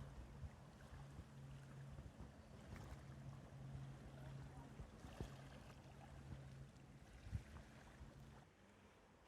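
Faint sound of a small sailboat under way: a low, steady hum with a light hiss of wind and water, the hum cutting out about eight and a half seconds in.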